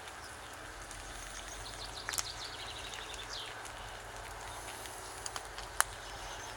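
A songbird's trill of quick repeated high notes falling in pitch, over a steady hiss, with a few sharp snaps, the loudest near the end.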